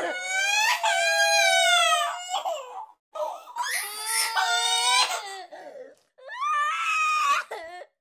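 A child crying and wailing in long, high cries that rise and fall in pitch, in three bouts broken by brief gaps. The last bout cuts off just before the end.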